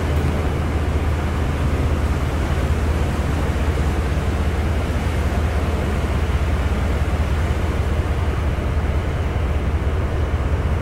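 Motor cargo ship's engine running steadily in a lock chamber: a constant low drone under an even rushing noise.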